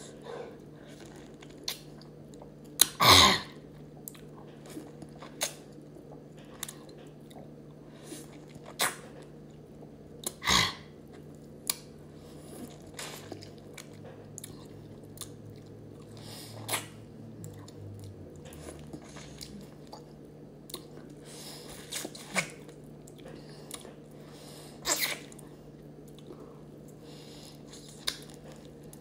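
A person chewing and biting into a lemon wedge close to the microphone: scattered wet mouth clicks and smacks, with a few louder sharp bites spread through, over a faint steady low hum.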